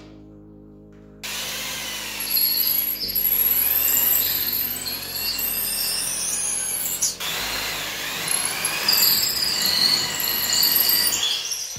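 Electric drill boring holes through a wooden batten into a plastered wall for 6 mm wall plugs. It starts about a second in and runs in two bursts with a short pause between them, its whine rising and falling in pitch as the bit bites.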